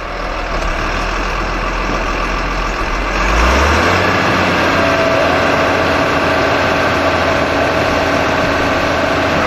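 Diesel engine of a sugar-beet cleaner-loader running, its engine speeding up about three and a half seconds in, with the rattle of beets tumbling over the spiral cleaning rollers.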